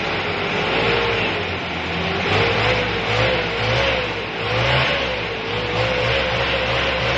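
Diesel engine of a 1997 Hyundai Starex van held at raised revs for a smoke-emission test. Its sound swells and eases every second or so, with a high wavering whine running above it.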